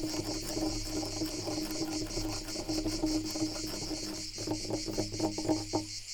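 Quick scratching strokes on wood, growing into distinct rapid strokes about four seconds in, over a steady chorus of chirping crickets.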